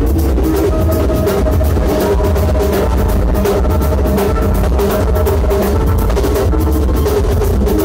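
Loud dance music with a heavy bass and a fast, busy drum beat, over held melodic tones.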